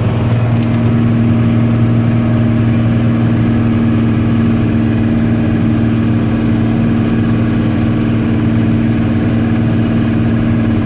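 Engine of a heavy farm machine running steadily at a constant low pitch.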